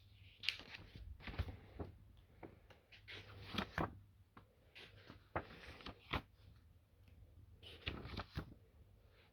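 Hands handling packaging during an unboxing: a run of irregular clicks, taps and rustles, with a quieter gap around seven seconds in.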